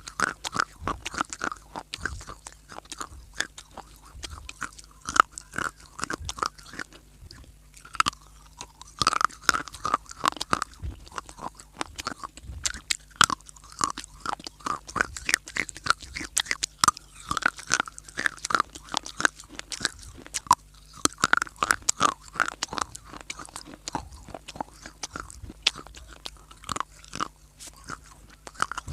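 Baked clay (mitti) being bitten and chewed, close-miked: a dense, irregular run of sharp crunches and cracks.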